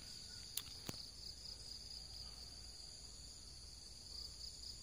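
Steady, high-pitched insect chorus. Two faint clicks come about half a second and one second in.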